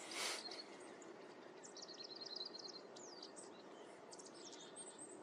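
Small birds chirping and twittering in quick runs of short, high notes, over a steady background hiss. There is a brief noisy whoosh just after the start.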